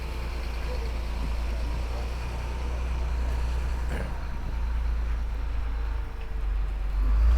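Heavy truck engine running as the truck pulls slowly through, a low rumble that grows louder near the end as it comes closer.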